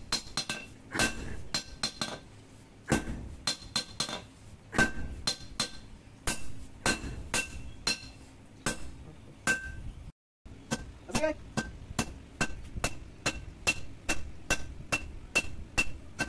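Blacksmith's hand hammer striking red-hot steel, an old power-tiller tine being forged into a blade, on a steel anvil: sharp, ringing metal clanks, blow after blow. After a brief break about ten seconds in, they settle into an even beat of about two to three blows a second.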